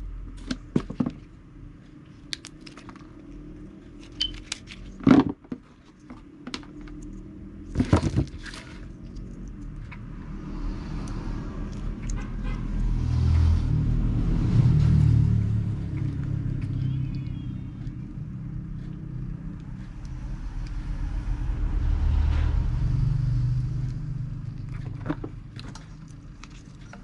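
Low rumble of a passing road vehicle, swelling to a peak about halfway through and fading, then a second one swelling and fading near the end. Before that, a few sharp clicks and taps from hands working wires on a plastic gauge housing.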